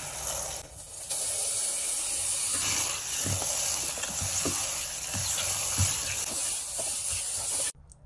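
Tap water pouring into a stainless steel pot of perilla seeds as they are rinsed and stirred with a wooden spoon, with a few soft knocks of the spoon against the pot. The water cuts off suddenly near the end.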